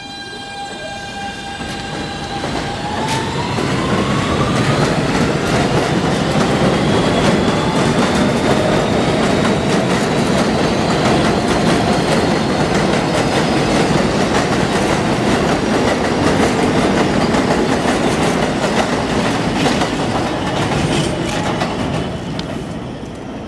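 R160B subway train with Siemens traction motors pulling out of an elevated station: the motors' electric whine holds a steady pitch, then rises about two and a half seconds in as the train speeds up. Under it the rumble and clickety-clack of the wheels on the rails grows loud, then fades near the end as the train moves off.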